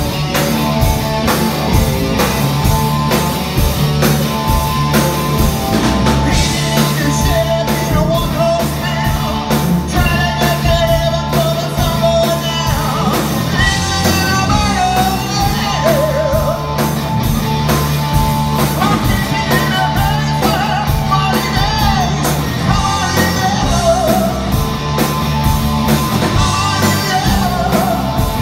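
Live hard-rock band playing loudly: electric guitars, bass guitar and drum kit, with a male lead singer.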